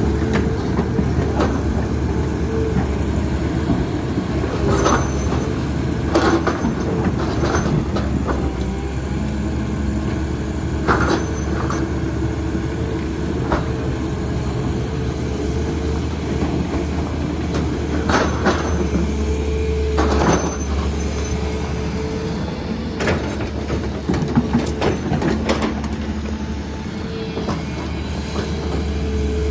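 Hydraulic excavator's diesel engine running steadily with a deep, continuous drone, broken every few seconds by sharp metallic clanks and knocks as it digs and places muck.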